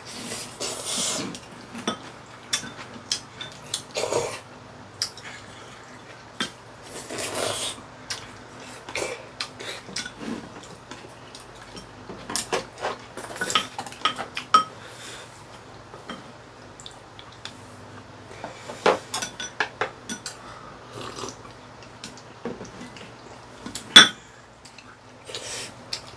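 Chopsticks and a spoon clicking and clinking against ceramic bowls and a pan during a meal, scattered irregular taps with short bursts of eating noise between them; one sharp clink near the end is the loudest.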